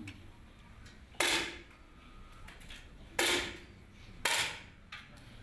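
Three 10 m match air rifle shots from neighbouring firing points: sharp pops about two seconds and then one second apart, each with a short ringing tail.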